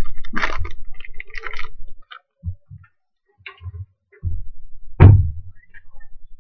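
Foil wrapper of a Topps Tribute baseball card pack crinkling as it is torn open and the cards slid out, with scattered handling clicks. A sharp thump about five seconds in is the loudest sound.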